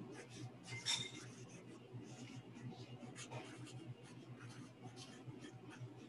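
Marker writing on paper: a run of faint, short scratching strokes at an uneven pace, with one sharper tick about a second in.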